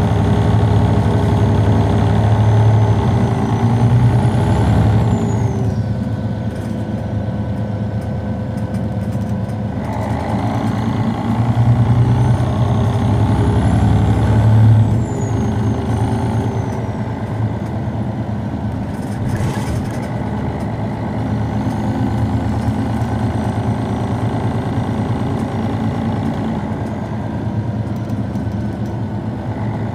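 Neoplan Centroliner city bus's MAN D28 (D2866) diesel engine running at a stop, swelling louder twice in the first half, with a faint high whistle rising and falling a few times. A short air hiss comes about twenty seconds in.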